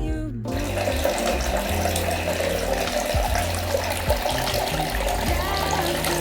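Hot-spring water running steadily into a bath, with background music over it.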